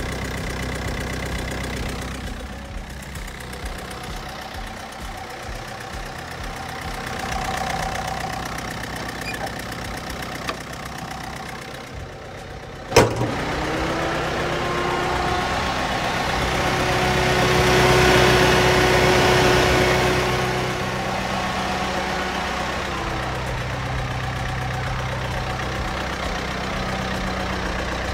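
Ford Figo engine idling with its air-conditioning compressor engaged and the radiator fan running, a steady hum. A single sharp click about halfway through, and a rushing noise that swells and fades a few seconds later.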